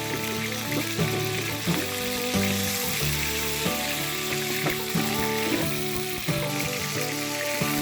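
Food frying in a pan with a steady sizzle, over background music.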